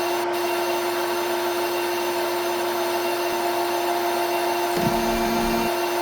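Simulated CNC milling machine sound from CNC simulator software: a steady spindle tone with cutting noise over it, and a short lower-pitched burst about five seconds in.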